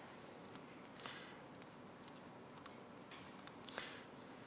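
Faint clicking at a laptop, about eight short clicks spread unevenly, the loudest near the end.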